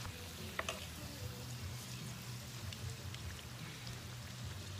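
Empanadas deep-frying in hot oil in an electric skillet: a steady sizzle with scattered small pops and crackles.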